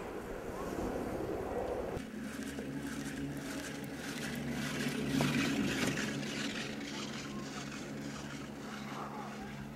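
Wind and snow noise while skiing down a groomed run. Then, after a cut about two seconds in, a steady low mechanical hum while riding a chairlift.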